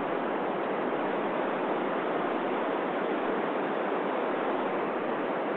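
Amateur radio receiver with its mute open, giving a steady hiss of white noise: no signal is being received yet while the station listens for the space station's reply.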